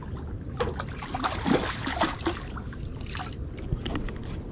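A hooked schoolie striped bass splashing and thrashing at the water's surface in irregular bursts, loudest in the first half.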